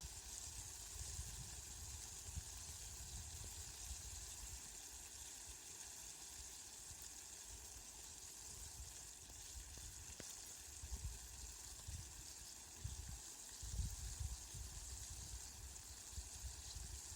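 Steady rain falling, an even hiss, with low rumbles that swell and fade a few times, most strongly in the second half.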